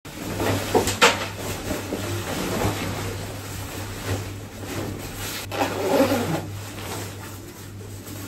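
Nylon rain jacket rustling as it is pulled on and its collar and hood are settled, in two spells of rustling with a sharp click about a second in. A steady low hum runs underneath.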